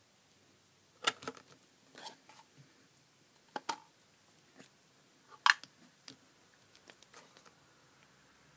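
Telescope eyepieces and their plastic dust caps being handled: a series of short, sharp clicks and knocks in small clusters, the loudest about five and a half seconds in.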